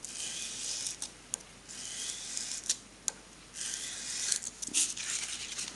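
A small cast-aluminium part is rubbed back and forth on abrasive cloth laid on a steel bench, to lap its face flat. The sound is a series of gritty, hissing strokes, each under a second, with a few sharp clicks between them as the part is lifted and set down.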